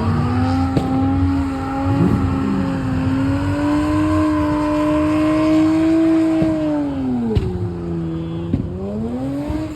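A car engine held at high revs, its pitch creeping up slowly, dropping sharply about seven seconds in, then climbing again near the end.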